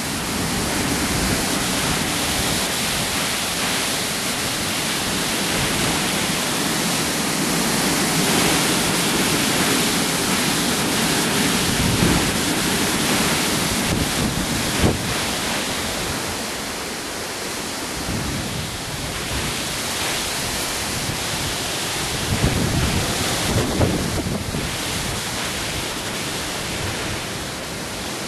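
Hurricane-force wind blowing hard in gusts, swelling and easing, with wind buffeting the microphone. A few sharp knocks stand out, twice near the middle and again later on.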